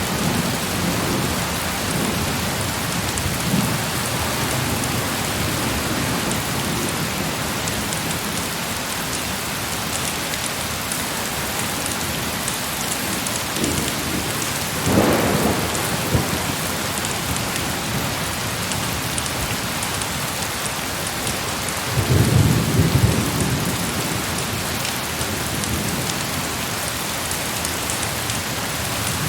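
Heavy, steady rain beating on a surface, with thunder rumbling twice: a short roll about halfway through and a longer, louder one about three quarters of the way through.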